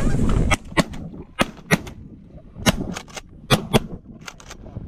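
Shotguns from several hunters firing a rapid volley of about a dozen shots at a flock of Canada geese, some shots louder and nearer, some fainter. A rushing noise fills the first half second before the first shot.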